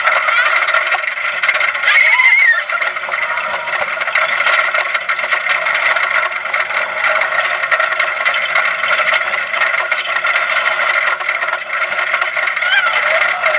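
Wooden roller coaster train running at speed, with a loud continuous rattle and wheel squeal on the track. Riders scream about two seconds in and again near the end.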